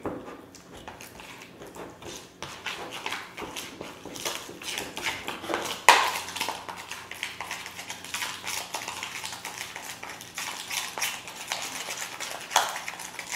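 Metal spoon stirring a thick pepper-paste sauce in a ceramic bowl: a run of soft scrapes and clinks against the bowl, with one sharper knock about six seconds in.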